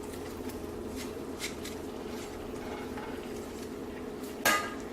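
Boiled pasta being stirred into cream sauce in a pan: faint soft ticks and scrapes over a steady low background noise, then one sharp, ringing clank of a utensil against the pan near the end.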